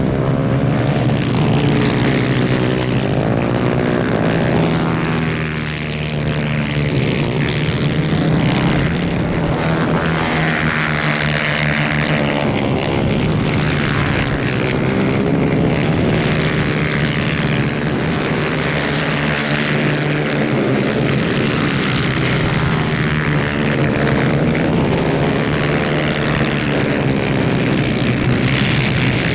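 Several 250cc two-stroke superkart engines racing at high revs, their whine rising and falling in pitch as karts pass by.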